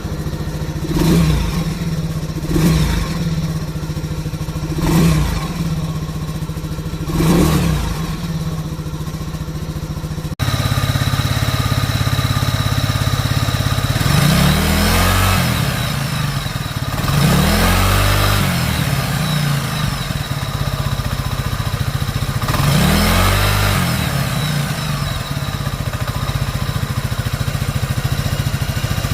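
Scooter engine running with an abnormal friction noise from a worn aftermarket 20-roller starter clutch, whose rollers rub against the large starter gear instead of rolling; it is easily mistaken for a slipping belt or clutch. The throttle is blipped four times, then after a cut about ten seconds in the engine runs on with three slower revs.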